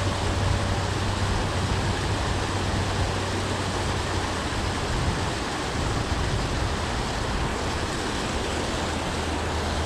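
Water pouring steadily over a low concrete dam spillway: a constant rushing noise with a low rumble underneath.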